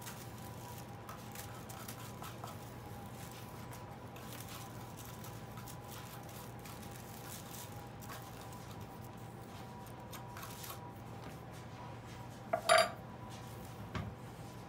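A metal spoon clinks sharply once, with a brief ring, about twelve seconds in, followed by a smaller knock. Before that, only light clicks and soft rustling are heard as squash seeds are handled at a plastic bag, over a steady faint hum.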